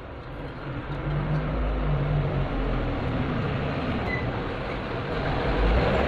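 Steady rumbling noise of a running engine or passing vehicle, growing a little louder near the end.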